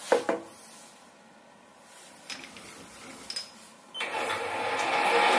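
A couple of sharp metal clicks, then a few quieter knocks; about four seconds in, the Sieg SC4 mini lathe starts up and runs its three-jaw chuck up to speed, a steady running sound that builds over about a second.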